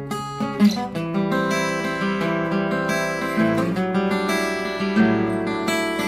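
Acoustic guitar strummed, with chords ringing out and changing every second or so.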